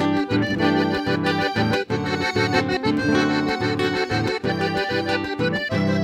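Button accordion playing an instrumental tune with a pulsing bass rhythm, with an acoustic-electric guitar accompanying.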